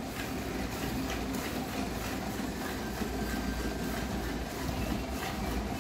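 A cow being milked by hand, with milk squirting in strokes into a steel bucket over a steady low hum.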